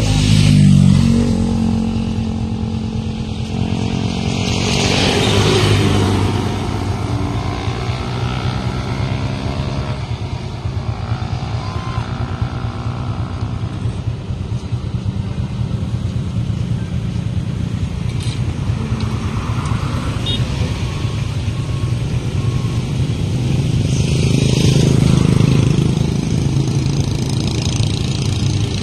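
Engines of a line of motorcycles and a vehicle passing along a road one after another: a continuous engine drone that swells about five seconds in and again near the end.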